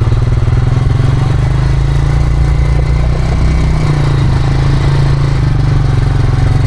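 ATV (quad) engine running steadily while riding.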